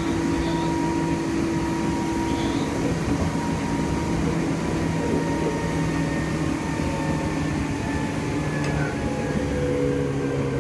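Meitetsu 6000 series electric train standing at the platform, its onboard equipment giving a steady hum of several held tones.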